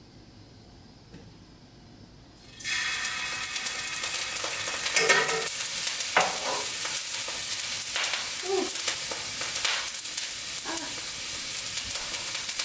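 Stir fry hitting a hot frying pan about two and a half seconds in, starting a loud sizzle that keeps going, with a utensil clattering and scraping in the pan now and then. The heat is too high.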